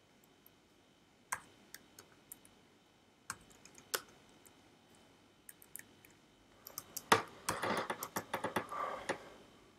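Computer keyboard being typed on: a few separate keystrokes spread out, then a quick flurry of keystrokes near the end.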